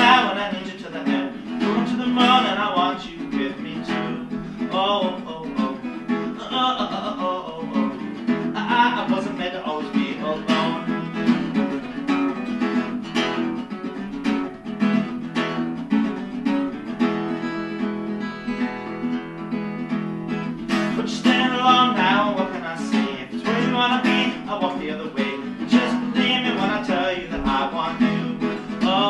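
Acoustic guitar strumming with a man singing over it, a folk-style song, with one long held note partway through.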